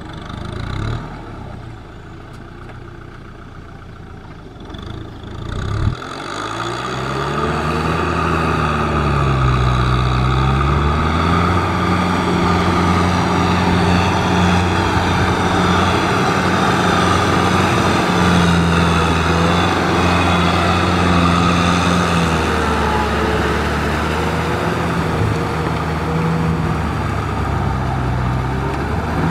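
Kubota M6040SU tractor's diesel engine working under load while pulling a rotary tiller through wet paddy mud. It is quieter at first and grows loud about six seconds in. Its pitch rises and falls a few times before settling into steady running.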